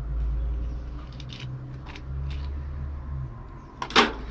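Scrap being handled: a few light clicks and knocks over a low rumble, then one sharp loud clank near the end.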